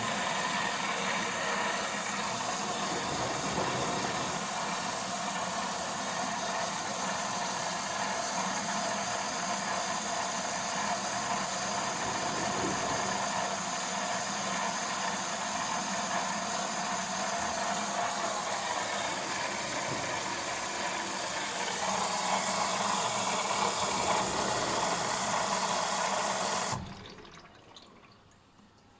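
Water rushing steadily into an LG washing machine through its inlet valve. The flow cuts off suddenly near the end.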